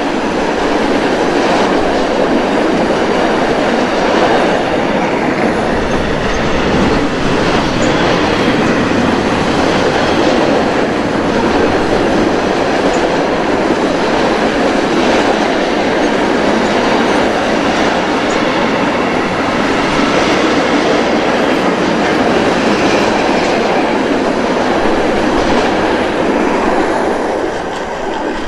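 Freight train of covered sliding-wall wagons rolling past close by, a steady clatter of steel wheels on the rails that falls away near the end as the last wagon goes by.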